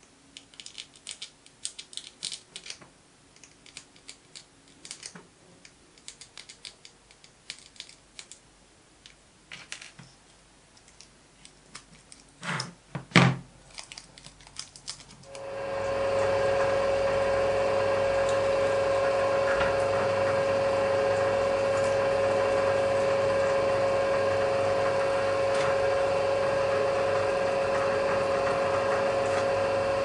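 Small clicks and taps of plastic model parts being handled and fitted, with a couple of louder knocks, then about halfway through a bench drill press starts and runs steadily with a strong steady hum as a fine bit drills a 3D-printed plastic part.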